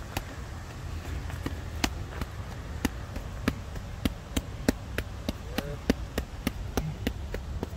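Irregular sharp clicks, several a second, over a steady low rumble, with one short pitched sound about five and a half seconds in.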